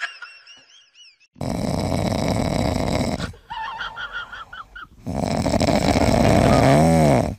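Dog snoring in its sleep: two long, loud snores a few seconds apart, with a wavering higher-pitched sound between them.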